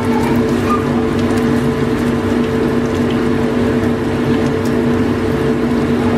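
A steady mechanical hum of a running motor with two held tones, over faint crackling of tempe mendoan deep-frying in oil.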